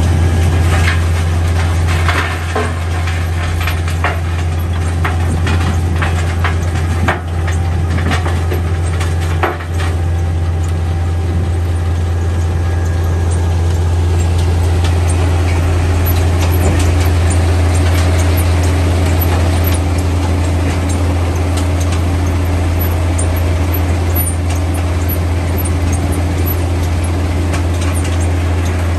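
Metso Lokotrack track-mounted jaw crushing plant running with a loud, steady low drone. Rock clatters and knocks as it is fed, mostly in the first ten seconds or so.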